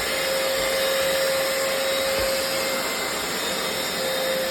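Hoover FloorMate hard floor cleaner running steadily as it washes a hard floor, its suction motor and brush roll giving an even rush with a steady whine.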